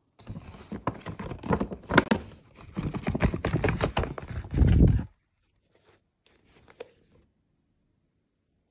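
Stiff paper shopping bag rustling and crinkling as a hand reaches inside and lifts out a boxed item, with many small crackles and a louder low rumble about four and a half seconds in. The handling stops about five seconds in.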